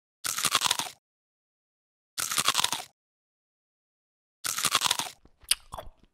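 Three crunches of biting into a breaded fried chicken sandwich, about two seconds apart with dead silence between them, then faint wet chewing clicks near the end.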